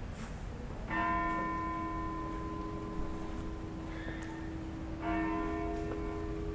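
A church bell tolling: two strokes about four seconds apart, each one left to ring on.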